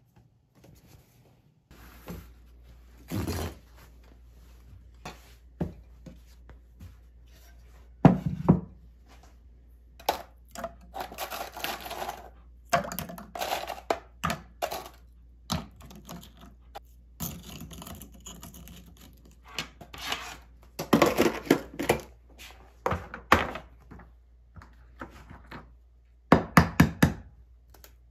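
Kitchen handling sounds: a plastic rice storage bin being opened, then scattered knocks, clatters and rustling of containers and utensils, ending with a quick cluster of sharp taps as an egg is cracked over a glass measuring cup.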